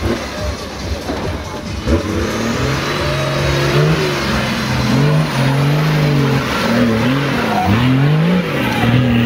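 Nissan Patrol 4x4's engine revving hard under load off-road, its pitch rising and falling again and again as the throttle is worked.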